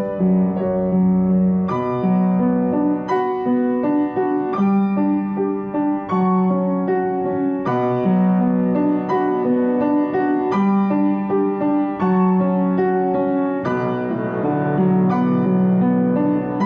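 Background piano music: a gentle melody of struck notes over held low bass notes.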